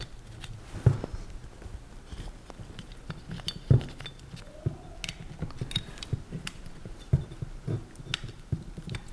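Irregular light clicks and knocks of a machined aluminium weapon block and its parts being handled while a rubber drive belt is worked onto the pulleys, with a few sharper knocks among them.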